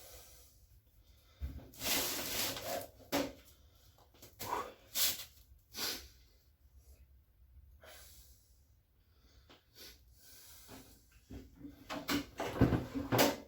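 Irregular handling noises, knocks, clicks and scraping, as the LG washing machine's drum tub is wrestled into place on its springs and shock absorbers, with a denser run of knocks near the end.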